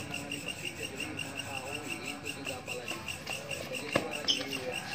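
A cricket chirping steadily, about six chirps a second, over faint voices. About four seconds in comes a sharp crack of a badminton racket striking the shuttlecock.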